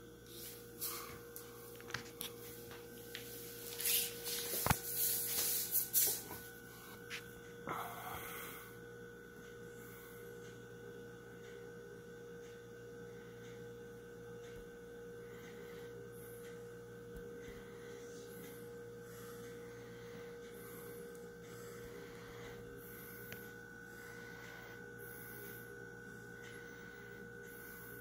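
Steady electrical hum holding two pitches, one low and one higher, with brief rustling and handling noises during the first several seconds.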